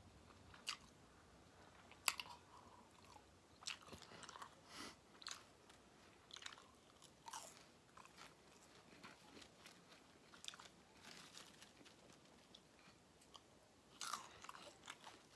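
Faint close-up chewing of battered fried fish: soft, irregular mouth clicks while eating.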